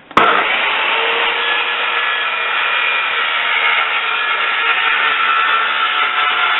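A power tool switches on just after the start and runs steadily at full speed, a continuous noisy whirr with faint steady tones.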